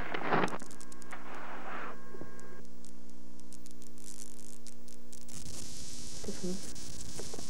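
Videotape noise at a break between camcorder recordings: a steady electrical hum with evenly spaced overtones, which changes to a hiss about five seconds in. Two short rushing noises come in the first two seconds.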